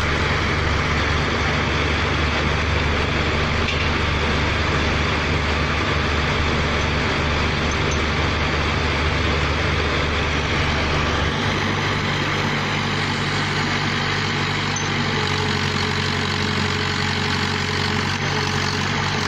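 Engine-driven machinery of a pneumatic drilling rig running steadily, a low engine hum under a broad hiss; about eleven seconds in, the deepest part of the hum drops away and the engine settles to a lighter note.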